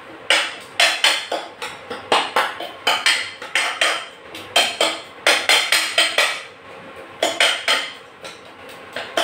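Steel ladle clinking and scraping against a steel saucepan while stirring a thick masala: sharp metallic knocks with a short ring, about two to three a second, with brief pauses near the end.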